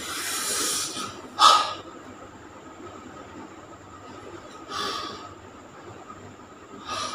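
A man breathing heavily: a long breath out, then a sharp, loud gasp about a second and a half in, and two quieter breaths later on, over a faint steady hum.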